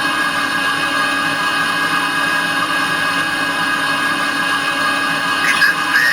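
A DCC sound decoder in a G-scale model of the Rhaetian Railway Ge 4/4 III playing the electric locomotive's running sound through its small speaker: a steady electric whine and hum made of several held tones.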